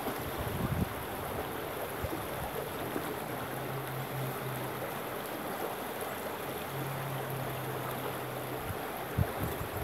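Shallow stream running over rocks: a steady rush of flowing water. A faint low steady hum comes and goes twice in the middle.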